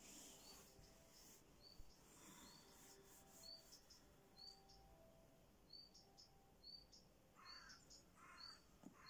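Faint, short, high bird chirps repeating about once a second against a quiet outdoor background.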